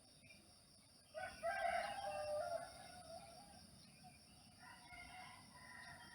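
Rooster crowing once, a pitched call of about a second and a half starting about a second in, with fainter pitched calls near the end over a steady high-pitched hum.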